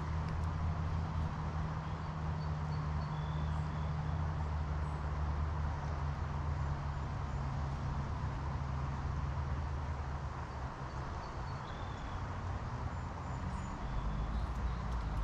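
Steady outdoor ambience: a low rumble with an even hiss over it, and a few faint, short high chirps.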